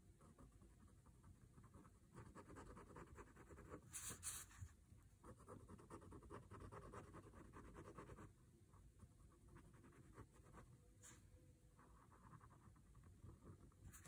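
Faint scratching of a Sakura Micron PN pen drawing strokes on a paper tile. It is a little louder for several seconds from about two seconds in, with a few brief sharper scratches.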